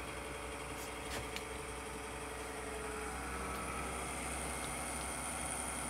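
Desktop PC's cooling fans running with a steady hum and whine, the computer powered on but failing to put anything on the screen. A few faint clicks about a second in.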